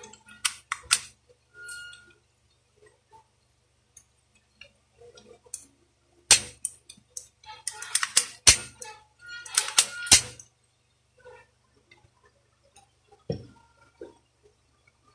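Plastic and metal parts of a Daisy Power Line 1200 CO2 air pistol clicking and knocking as they are handled and fitted together, with sharp clacks in quick clusters around the middle. A duller knock near the end as the pistol is laid on the table.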